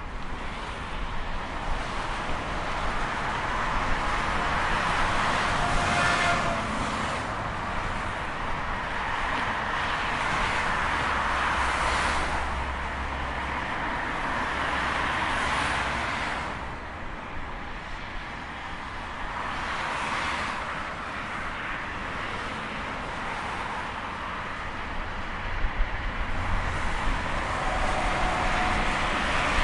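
Road traffic: vehicles passing one after another, each a rush of engine and tyre noise that swells and fades every few seconds.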